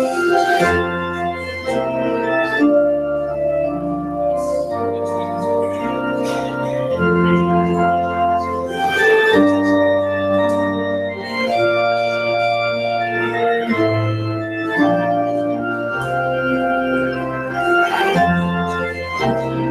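Church organ playing the closing postlude: slow, sustained chords over a moving bass line, changing about once a second.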